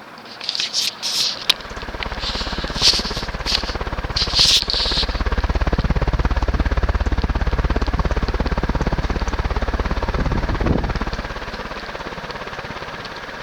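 Early-1980s TAT-built Gulf Coast 36-inch industrial ceiling fan running on high speed: a low rumble of moving air with a fast, even pulsing that swells after a few seconds and eases near the end, with slight bearing noise. Several short, sharp hissy bursts come in the first few seconds.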